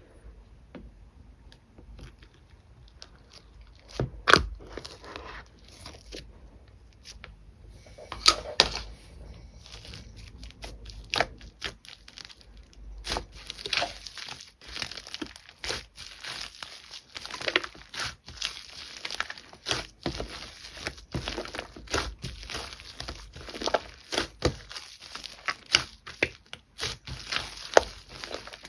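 Liquid slime being worked by hand as shaving foam is mixed in, giving sharp crackling clicks and pops. A few loud pops come in the first half, then the crackling turns dense and continuous from about halfway through.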